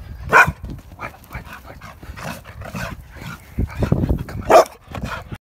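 A dog barking in play: two loud sharp barks, one about half a second in and one near the end, with smaller yips and low thumps between.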